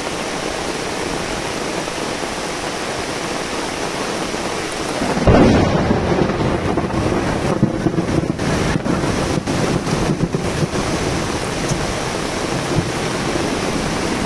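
Steady hiss of rain. About five seconds in, a loud low rumble sets in and carries on.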